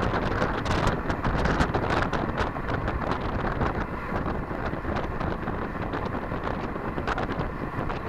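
Wind rushing over the microphone of a camera mounted on a moving road bike, with frequent small clicks and rattles throughout.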